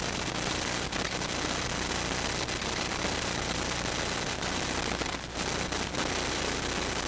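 Radio or TV interference: dense static hiss crackling throughout, over a steady low hum, with a short dropout about five seconds in.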